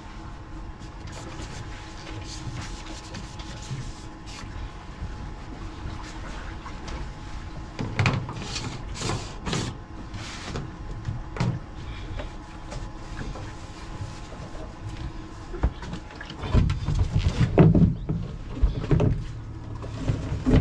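Knocks, clunks and rustling of hands at a boat's deck fuel filler as the fuel hose is taken out and the filler cap is fitted back on, over a faint steady hum. Heavier thumps come near the end.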